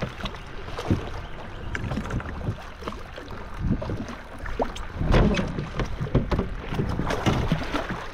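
Sounds aboard a small fishing boat on rough water: wind on the microphone and a steady low rumble, with scattered knocks and thuds and a louder thump about five seconds in.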